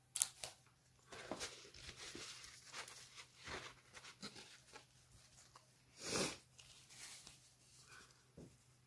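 Rustling and handling of a large piece of linen cross-stitch fabric as it is picked up, unfolded and held up, with scattered soft rustles and one louder rustle about six seconds in.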